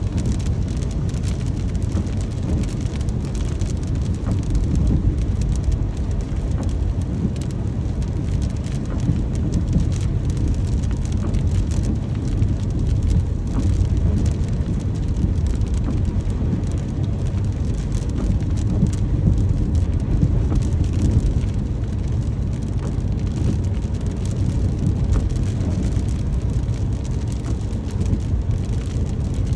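Steady rain: an even rush with many small drop ticks, over a deep, constant low rumble.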